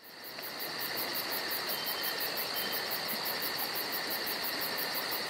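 Insect chorus: a steady high-pitched trill, with a faster pulsing chirp above it about five times a second, fading in over the first second.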